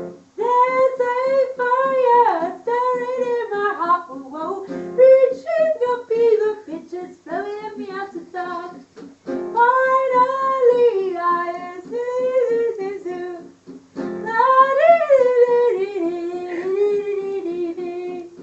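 A woman singing over a guitar that repeats a single chord.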